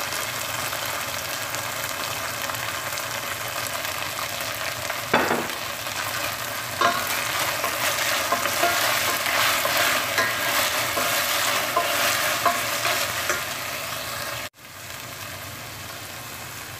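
Onions, bell peppers and carrots sizzling in oil in a stainless steel pot while a wooden spatula stirs them, with sharp knocks and scrapes of the spatula against the pot, most of them in the middle. Near the end the sound drops out for an instant and comes back quieter.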